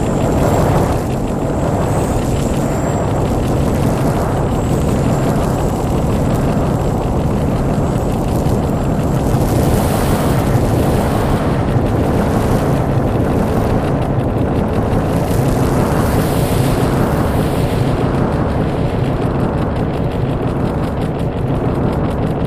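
Electronic noise music: a dense, steady rumbling noise drone, with a faint high whistle over it for the first few seconds.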